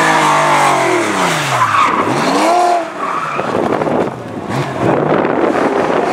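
Rally car engine dropping steeply in revs as the car brakes, then revving up hard at about two seconds in, followed by a loud rushing noise without a clear engine note as the car goes past.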